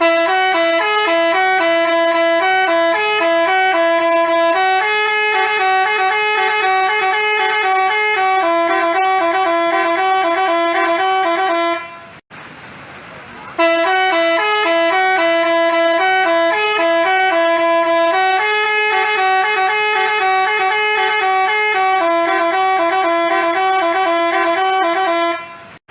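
Basuri telolet bus horn playing a tune of quickly stepping notes. The tune breaks off about twelve seconds in, then plays through again after a pause of a second or so.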